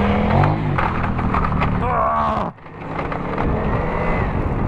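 Motorcycle engine running while riding along a gravel track, with road rumble, and a brief rev about half a second in. The sound drops out suddenly about halfway through and picks up again steady.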